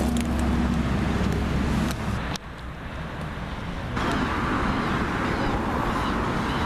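Road traffic noise: cars passing with a continuous hum of engines and tyres, dropping quieter for a stretch a little over two seconds in and rising again about four seconds in.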